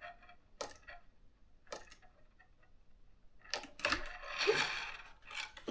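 Hand screwdriver driving a screw into the tail of a model airplane to fix its horizontal stabilizer: a few scattered clicks, then a busier stretch of clicking and scraping about four to five seconds in.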